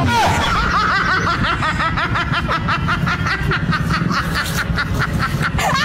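A laugh track: many people chuckling and snickering at once, dense and continuous.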